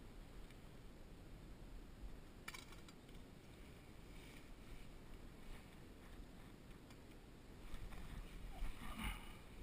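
Landing net drawn through shallow water to the bank with a hooked tench, giving a brief run of splashing and sloshing near the end. A single short click comes about two and a half seconds in.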